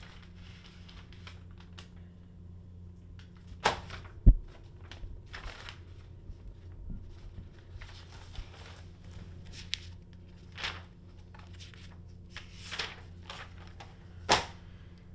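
Paper documents being handled and shuffled, with scattered rustles and crinkles, a couple of sharp crackles and a dull thump about four seconds in, over a steady low electrical hum.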